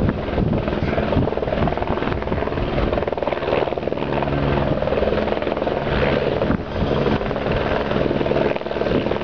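Army helicopter's rotors and engine running loud and steady, with a few steady low tones under a rapid, even beat of the blades.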